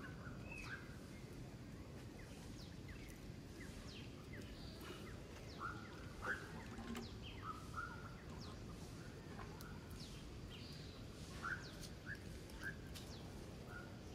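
Short high-pitched squeaks and chirps, scattered and irregular and loudest about halfway and again near the end, typical of a baby long-tailed macaque calling for its mother, over a steady outdoor background hiss.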